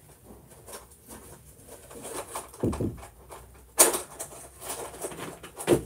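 Handling noise: scattered light clicks, knocks and rustles of objects being moved about, with a sharp click about four seconds in and dull thumps near three and six seconds.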